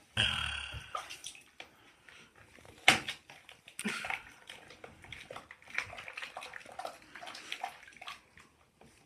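Soapy water sloshing and splashing in a plastic bucket as hands wash a puppy: irregular swishes and splashes, the loudest a sharp one about three seconds in.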